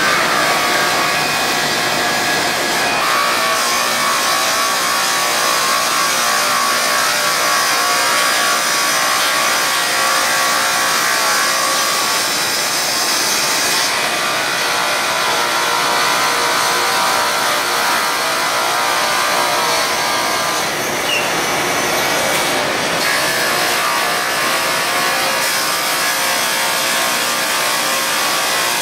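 Board sanding and edging line running: electric motors, sanding heads and roller conveyors make a loud, steady mechanical noise with several steady whining tones over it.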